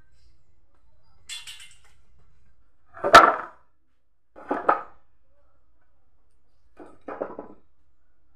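Heavy salvaged wooden boards knocking together as they are lifted and laid on a stack: a loud wooden clack about three seconds in, a double knock a second and a half later, and softer knocks near the end.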